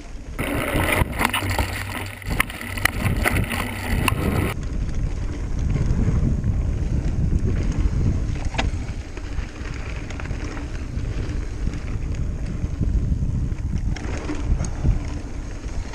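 Mountain bike coasting fast down a dirt trail: wind buffeting the action camera's microphone and the tyres rumbling over the ground. A rougher stretch in the first few seconds brings many sharp clicks and rattles from the bike.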